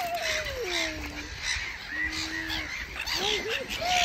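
A flock of gulls calling as they are fed: a string of separate squawks and gliding calls, one long falling call near the start and several short arched ones near the end.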